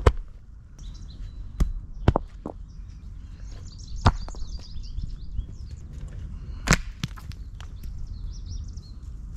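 Rocks dropped onto loose soil in a dug fire pit, landing with a handful of sharp thuds, the loudest at the very start and about two-thirds of the way through. Birds chirp in the background.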